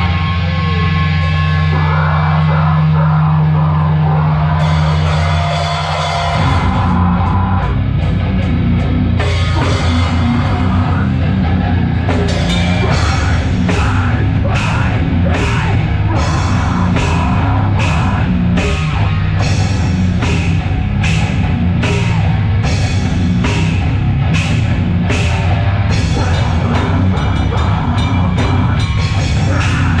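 Live metal band starting its set: a held low droning guitar and bass note for about six seconds, then the full band with drums comes in loud, with steady regular hits from about twelve seconds in.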